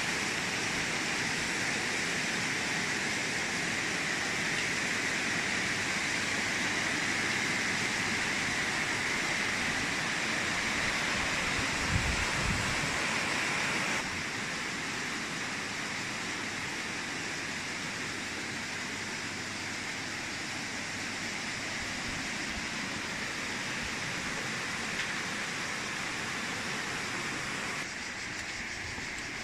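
Steady rush of fast, shallow water in the stream flowing out of a karst spring. It drops a step quieter about halfway through.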